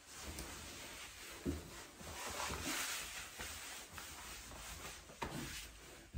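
Fabric rustling as a long-sleeved mountain-bike jersey is pulled on over the head and tugged down over a molded chest protector, with a couple of soft knocks.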